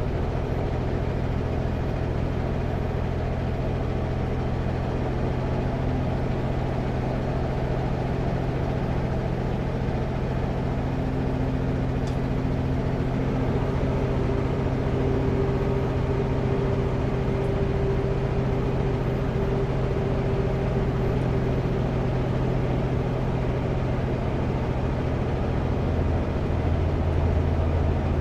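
Kenworth W900L semi truck's diesel engine and road noise droning steadily in the cab at highway speed, with a fainter higher hum coming in and fading out in the middle.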